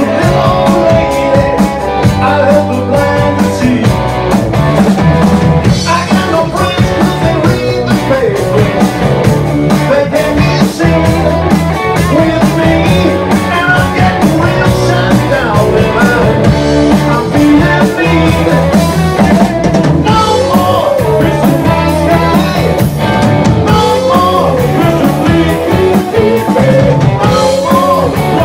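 Live rock band playing: electric guitar, bass guitar and a drum kit with a steady beat, with a male lead singer.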